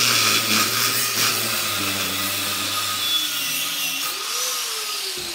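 Angle grinder grinding through the weld on a transformer's welded steel core: a continuous grinding hiss over the motor's whine, which dips and rises with the pressure on the disc. Near the end it winds down, its pitch falling.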